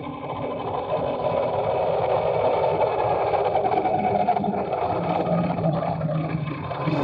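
Riding noise picked up by a dashcam on a moving electric scooter, with the engines of nearby motor scooters in traffic. It is a steady noisy whir, and a low hum rises a little about five seconds in.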